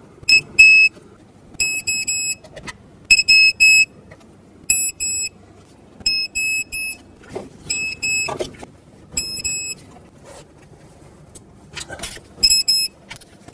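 Digital torque wrench beeping in short clusters of rapid, high-pitched beeps, about every second and a half, signalling that the set torque of 89 inch-pounds is reached on the valve cover bolts. A few clicks fall in between.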